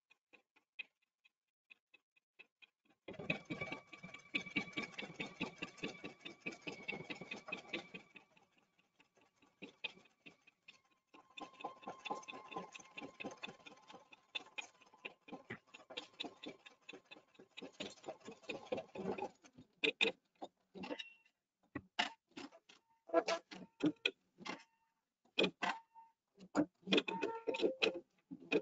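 Pfaff embroidery machine stitching a straight-stitch outline around a quilt block in the hoop: two runs of fast, even needle ticking with a short pause between, then slower, separate clicks near the end.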